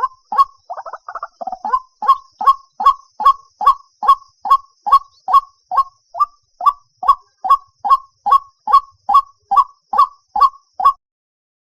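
White-breasted waterhen calling: a brief fast chatter, then a long, even run of short, loud single notes at about two and a half per second, stopping shortly before the end.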